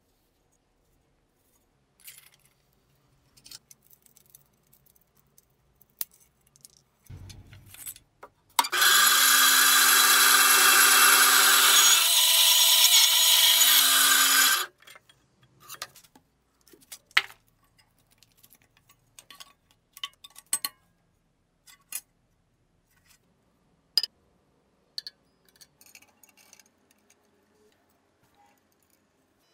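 Band saw running and cutting through the knife's old wooden handle, a loud steady machine sound lasting about six seconds that changes tone partway through the cut. Scattered small clicks and knocks of handling before and after it.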